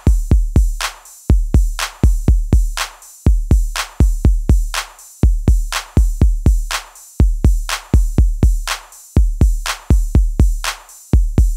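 Background music: an electronic drum-machine beat with deep bass kicks and sharp snare-like hits, in a pattern that repeats about every two seconds.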